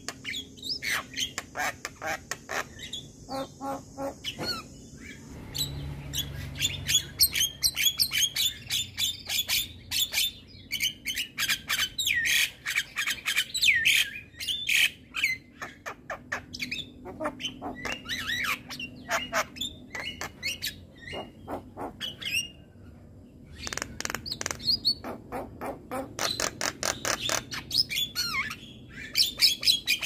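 Javan myna singing a fast chattering song of harsh clicks, squawks and short whistled notes, in runs broken by brief pauses.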